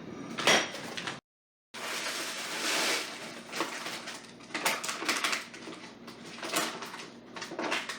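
Beeswax pellets being poured into a mini crock pot: a dense rattling pour for about a second, followed by scattered clicks and knocks as the last pellets fall and settle.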